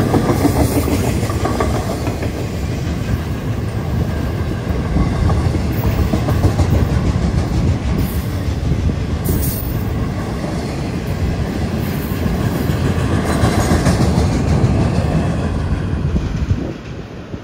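Double-stack intermodal freight cars rolling past: a steady, loud rumble of steel wheels on the rails with rhythmic clickety-clack and a few brief high-pitched wheel squeals. The sound drops off sharply near the end as the last cars go by.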